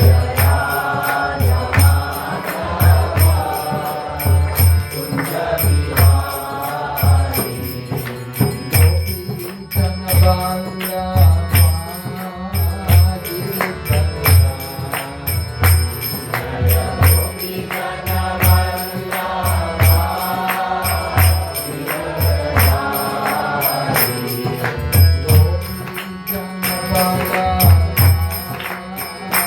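Devotional kirtan: a melodic chant sung over steady low drum strokes, about one or two a second, with small hand cymbals striking in time.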